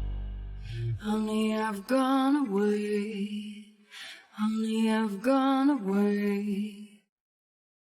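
The last chord of a song fades out, then an unaccompanied voice sings a short wordless melody twice, with a brief pause between the two phrases. The track stops abruptly about seven seconds in.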